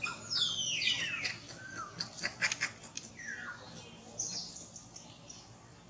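Baby monkey crying: a series of high-pitched squeals that fall in pitch, with a quick run of clicks and knocks about two seconds in.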